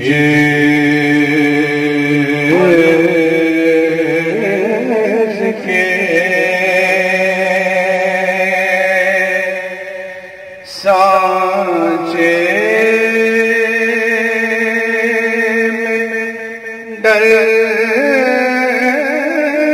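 Urdu naat sung in a chant-like style by a male voice: long, held, layered vocal phrases with no drum beat, new phrases starting about 11 and 17 seconds in.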